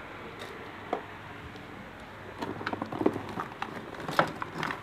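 Steady low hum, then from about two seconds in a run of irregular small clicks and knocks from hands handling things on a desk, the loudest one near the end.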